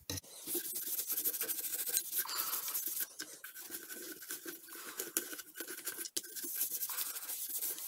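Stiff gun-cleaning bristle brush scrubbing the inside of a pump-action shotgun's receiver in quick back-and-forth strokes, working solvent into oxidation.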